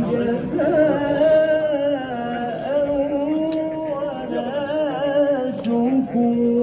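A man's voice chanting a slow, melodic religious recitation, holding long notes with ornamented turns.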